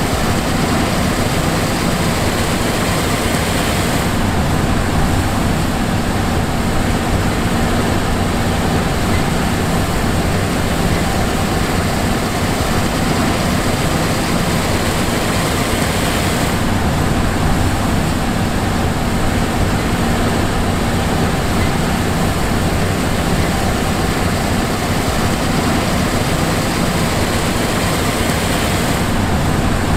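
John Deere S780 combine harvester running steadily: a continuous diesel engine and machinery drone with a few steady hum tones over a broad hiss.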